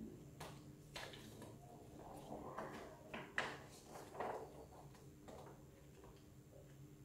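Faint handling noise from sheets of paper and a plastic basket: a handful of short rustles and clicks, irregularly spaced and mostly in the first five seconds, over a steady low hum.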